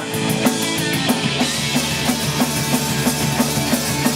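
Punk rock band playing live, instrumental with no singing: a steady drum-kit beat under the band, with cymbals crashing from about a second and a half in.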